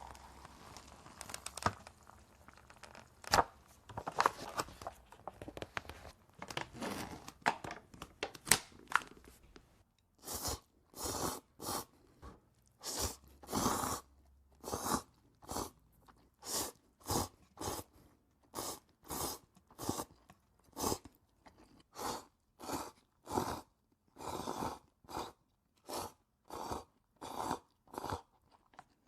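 Scattered crackling clicks for the first third, then steady crunching as crunchy food is bitten and chewed, about three crunches every two seconds.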